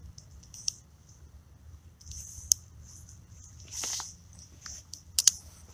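Handling of a light spinning rod and reel: a few sharp clicks and light rustling, with a longer rustle about four seconds in and two quick clicks near the end.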